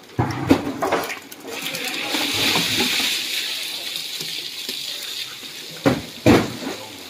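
Live catfish being handled by hand: wet slaps and thuds of fish dropped onto a plastic tarp and into a bamboo basket. Several impacts come in the first second, then a steady hiss, and two loud thumps near the end.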